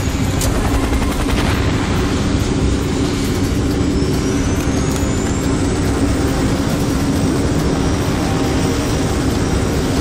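Helicopter running: a loud, steady rotor and engine noise with a low hum throughout. A faint whine rises in pitch a few seconds in.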